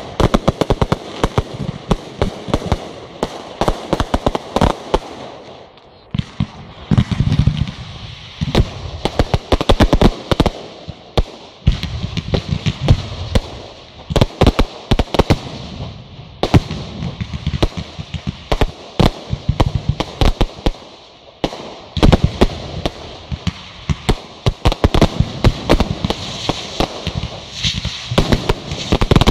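Fireworks display: a dense barrage of shell bursts, bangs and crackling, coming in waves that ease off briefly every few seconds before building again.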